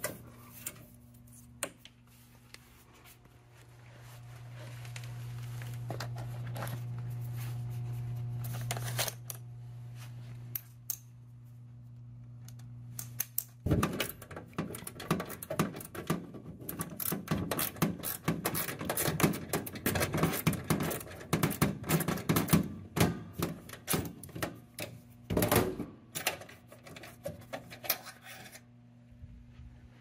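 Klein mini ratchet clicking in quick, rapid strokes as it backs out the mounting screw of a gas furnace's flame sensor, with one louder knock near the end. A steady low hum runs through the first half before the ratcheting starts.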